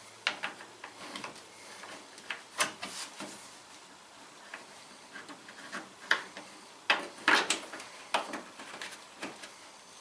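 Irregular clicks, knocks and short scrapes of hand work on a plastic mud guard and its fastening screw at a truck's wheel well, loudest in a cluster a little past halfway.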